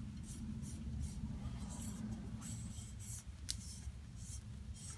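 Remage barrel nut being turned by hand onto the rifle barrel's threads: faint, repeated short scraping of steel on steel. One sharp click about three and a half seconds in.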